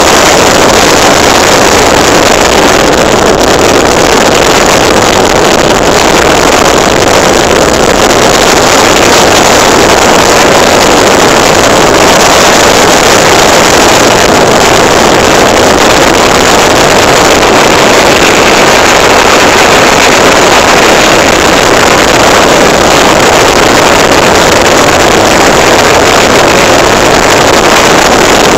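Loud, steady rush of wind buffeting a phone microphone while riding along a road, with motorcycle engine noise mixed in.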